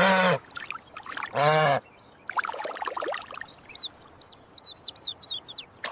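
Cartoon sound effects: a duck quacks once, water splashes and trickles, then comes a run of quick, high chirps.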